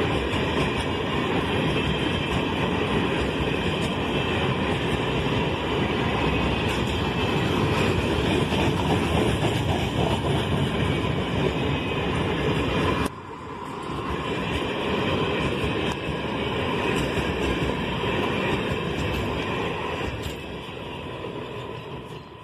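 Freight train of grain hopper wagons rolling past at close range, with a steady, loud rumble of wheels on the rails. About halfway through the sound drops suddenly to a quieter level, then fades out near the end.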